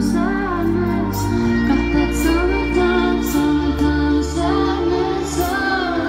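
Live pop band with drums, bass and keyboards playing a slow song while a woman sings the lead melody, with regular cymbal strokes, heard through a concert PA from the crowd.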